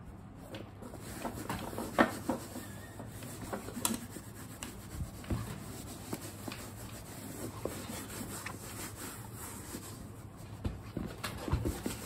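Leather handbag being wiped with a leather cleaning wipe and handled: soft rubbing and rustling with scattered small knocks and clicks from the bag and strap hardware, the sharpest about two seconds in.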